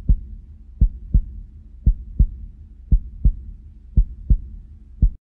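Heartbeat sound effect: slow low double thumps, lub-dub, about one beat a second over a faint low hum, cutting off suddenly near the end.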